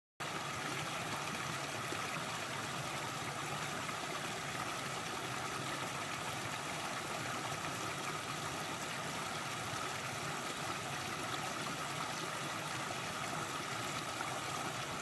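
Small creek running over rocks, with a steady, even rush of water from a low cascade.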